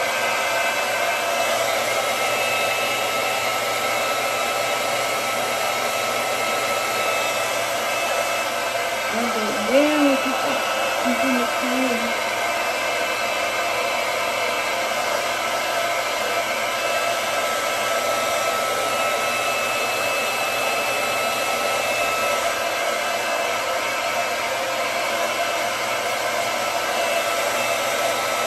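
Handheld hair dryer blowing steadily at a wig cap: a constant rush of air with a faint steady motor whine.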